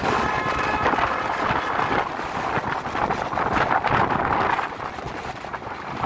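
Wind buffeting the microphone: a rough rushing noise that swells and eases in gusts, with road traffic mixed in beneath it.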